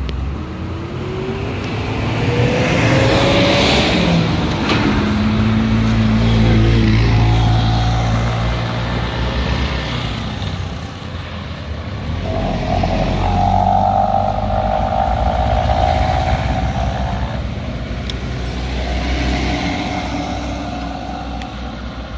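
Motorcycle and small-vehicle engines running close by, passing and idling, with one engine revving up in pitch over the first few seconds and a steadier engine tone in the middle.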